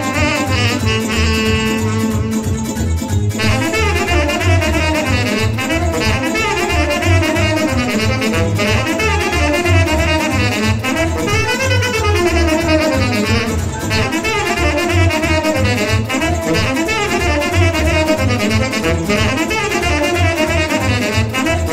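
Saxophone playing a fast Oltenian sârba folk dance tune in quick, twisting runs, over a steady low bass beat.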